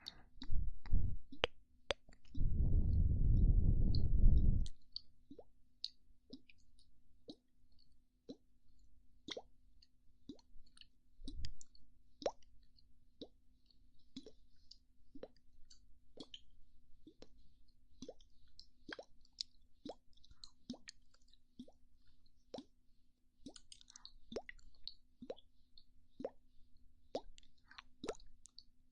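ASMR mouth popping sounds: soft, sharp lip and mouth pops close to the microphone, about one a second. About two seconds in comes a loud rush of breath blown onto the microphone lasting about two seconds.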